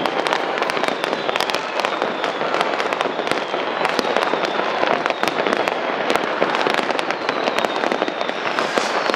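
Dense New Year's Eve fireworks: a continuous barrage of firecracker and rocket bangs and crackles overlapping without a break, with a few high whistles falling in pitch.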